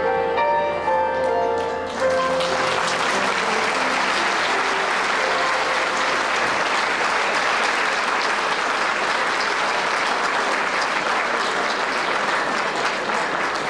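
The last notes of a song's musical accompaniment stop about two seconds in, and an audience breaks into sustained applause that carries on to the end.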